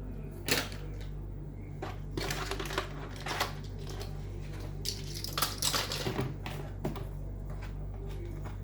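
Small hard objects, plastic toys being sorted, clattering and clicking as they are picked up and set down in irregular bursts, over a steady low hum.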